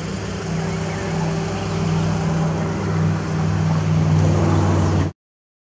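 Cammed 500-horsepower engine of a lifted Chevrolet pickup idling steadily through dual Flowmaster exhausts, a little louder toward the end. The sound cuts off suddenly about five seconds in.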